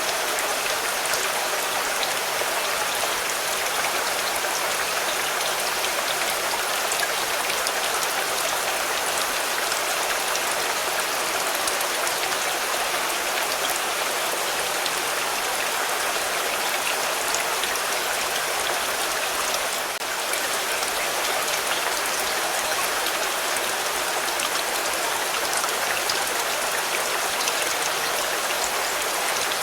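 Steady rain falling on a car: an even hiss of rain with scattered individual drop ticks.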